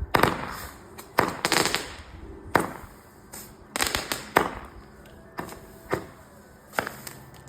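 Small consumer firework going off in a run of about a dozen sharp pops and cracks, spaced irregularly over several seconds.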